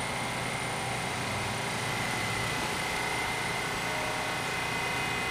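R68 subway train moving along the station platform: a steady running noise of wheels and motors at an even level, with a thin steady high whine through it.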